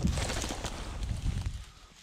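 Rustling and footsteps through field cover, with wind buffeting the microphone, dying down near the end.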